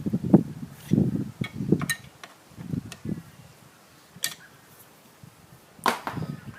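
Hand tools and metal parts being handled while fitting an ABS module. Low scraping and rattling fills the first two seconds, then come a few sharp metallic clicks, the loudest near the end.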